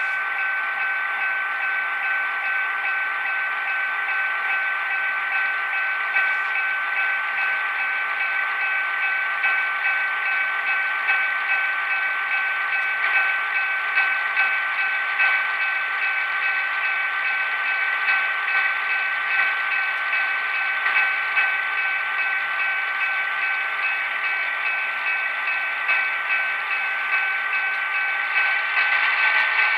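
Walthers P2K SW9/1200 HO-scale switcher's DCC sound decoder playing a diesel engine running steadily through the model's small onboard speaker, giving a thin, tinny drone with a slight regular pulse as the locomotive crawls along at a low speed step.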